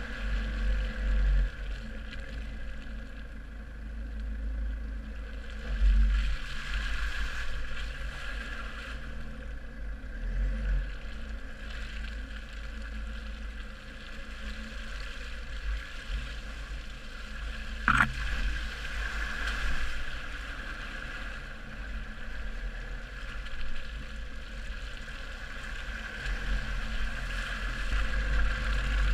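Land Rover Freelander 2 SD4 diesel driving over a dirt off-road track, heard from a camera mounted outside on the front wing, with gusting wind rumble on the microphone. A single sharp knock sounds about 18 seconds in.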